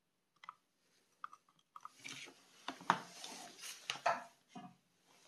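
Light clicks, taps and rubbing from a small circuit board and its wires being handled inside an opened plastic heat-gun housing, with two sharper clicks near the middle.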